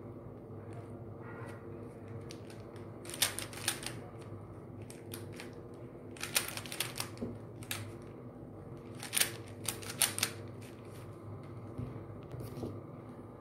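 3x3 Rubik's cube being turned quickly during a speedsolve: rapid plastic clicking and rattling of the layers, coming in clusters a few seconds apart with single clicks between, over a steady low hum.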